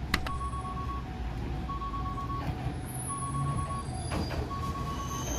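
Electronic warning signal sounding two alternating steady notes, high then low, each held about two-thirds of a second, over a low vehicle rumble, with a sharp click just after the start.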